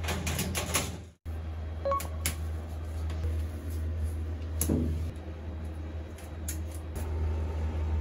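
A quick run of clicks from the new range hood's pull-cord switch, then, after a short break, scattered clicks and soft rustles of masking tape being pressed along the tiled wall. A steady low hum runs underneath throughout.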